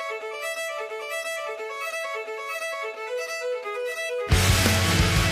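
Music: a violin melody of short, separate notes. About four seconds in, a much louder and fuller piece of music cuts in abruptly.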